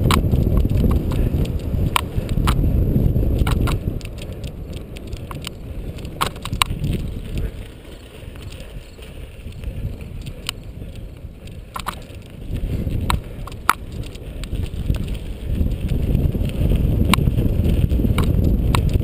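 Cyclocross bike ridden over bumpy grass: a rough rumble from the tyres and the wind on the microphone, with sharp clicks and rattles from the bike as it goes over bumps. The rumble drops for several seconds in the middle and builds again after about 13 seconds.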